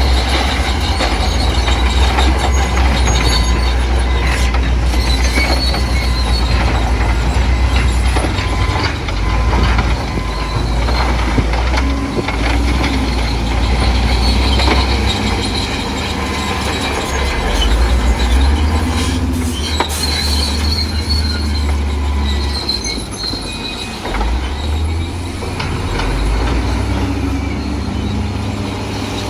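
Bulldozer working: a diesel engine rumbles steadily under load, rising and easing, while its steel tracks squeal on and off.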